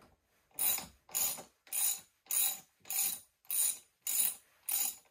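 Ratchet wrench with a 10 mm socket swung back and forth to back out a loosened bolt, a short run of pawl clicks on each stroke. There are about eight even strokes, a little under two a second, starting about half a second in.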